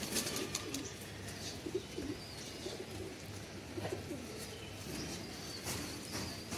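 Domestic pigeons cooing, low and soft, over and over, with a few light clicks near the end.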